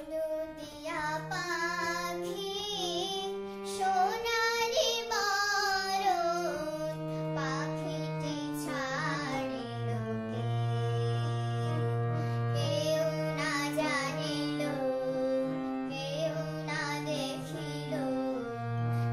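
A girl singing a Bengali song, accompanying herself on a harmonium. Steady held harmonium notes sound under her voice.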